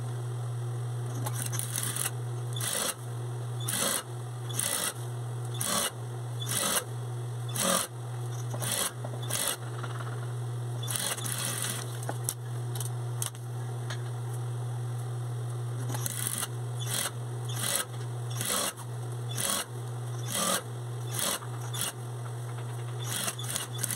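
Industrial Singer straight-stitch sewing machine hemming fabric: its motor hums steadily, and short bursts of stitching come at irregular intervals, roughly one a second.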